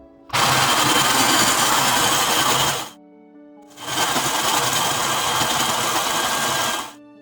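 Snow cone machine shaving ice, run twice for about three seconds each with a short pause between, each run stopping abruptly.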